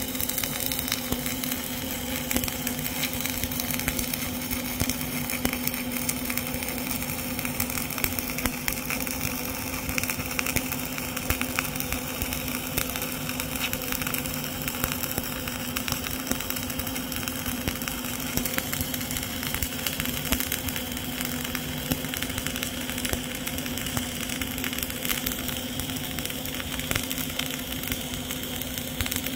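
CO2-shielded flux-cored arc welding arc crackling steadily over a steady hum during a fill pass.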